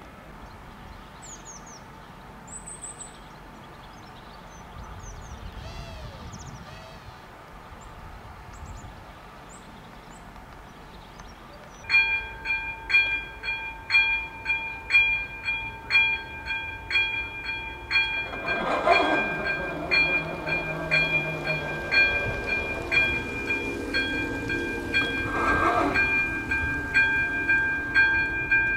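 Czech level-crossing warning bell starting up about twelve seconds in. It rings as an electronic ding struck about one and a half times a second while the crossing closes and the barriers come down for an approaching train. Before it there are only faint bird chirps, and in the second half two louder sounds rise over the ringing.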